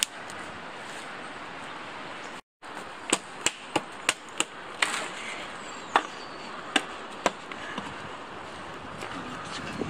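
A hatchet chopping at a tree branch: about nine sharp, separate knocks at an uneven pace, starting about three seconds in and stopping after about seven seconds.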